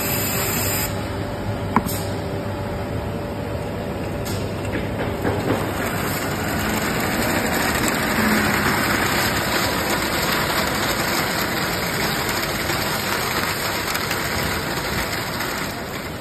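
Thermal-paper slitter rewinder machine running steadily, a continuous mechanical noise that swells a little in the middle. There is a single sharp click about two seconds in.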